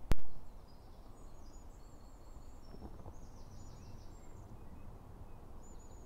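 A sharp click just after the start, then faint songbirds giving high chirps and short descending trills over a low steady rumble.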